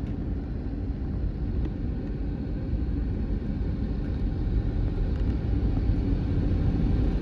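Steady low rumble inside the cabin of an Airbus A321 airliner taxiing after landing.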